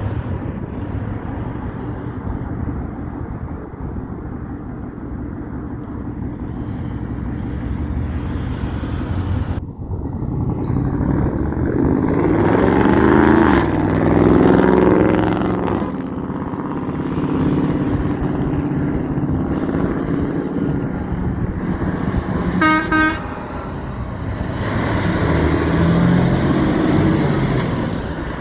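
Heavy trucks and other traffic driving past with engines running. One loud pass comes about halfway, its engine pitch falling as it goes by. A brief horn toot sounds about three-quarters of the way through.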